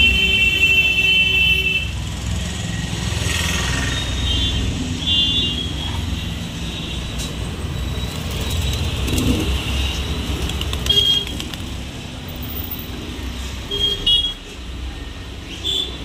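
Street traffic running steadily, with vehicle horns honking: one long honk in the first two seconds, then several short toots spread through the rest.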